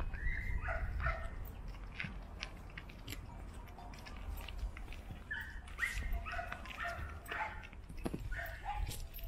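Dogs barking and yipping in short calls: a few in the first second, then a busier run from about the middle to near the end.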